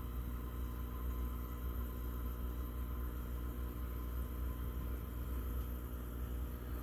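Steady low hum with a faint hiss from aquarium equipment running, unchanging throughout.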